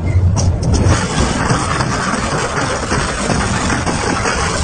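Double-shaft shredder running, with a steady low motor hum, then from about a second in a dense grinding and crunching as its cutter discs chew through a steel bicycle.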